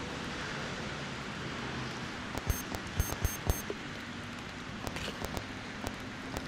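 Real-time synthesised electronic sound: a steady hiss of noise with sparse sharp clicks, a small cluster of them about halfway through.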